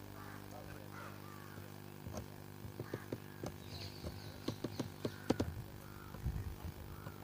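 A boat's engine running with a steady low hum, with a run of irregular sharp knocks from about two seconds in, loudest a little past the middle.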